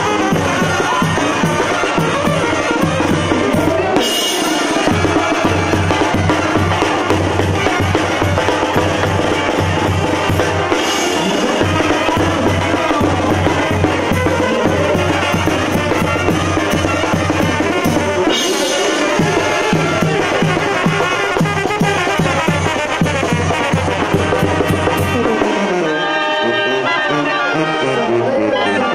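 Live Mexican banda playing: tambora bass drum with its mounted cymbal and a snare driving a steady beat under trumpets and clarinets, with cymbal crashes about 4, 11 and 18 seconds in. Near the end the drums drop out and the clarinets carry the tune.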